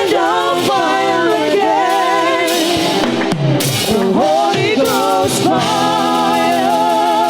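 Gospel worship music: a solo voice singing long, wavering notes that slide in pitch, over steady band accompaniment.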